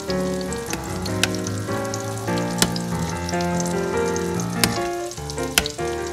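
Carp roe sizzling in a small saucepan, with a metal spoon clinking against the pan five times or so as the roe is broken up. Background music with held notes plays throughout.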